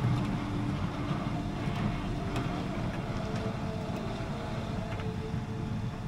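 Small family roller coaster train of linked cars rolling along its steel track, a steady rumble with a faint hum and a few light ticks.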